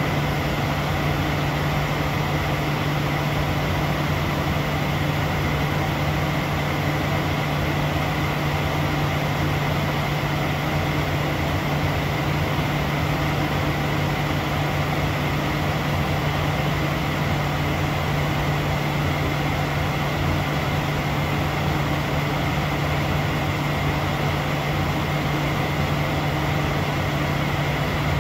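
Steady cockpit noise of a jet aircraft in cruise at high altitude: an unbroken rush of air with a constant low hum and a thin high whine over it.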